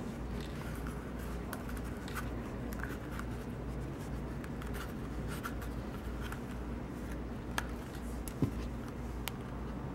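Hand saddle-stitching a leather holster: thread drawn through the stitching holes and the leather handled, giving small scratchy rustles and light ticks, with a few sharper clicks late on. A steady low hum runs underneath.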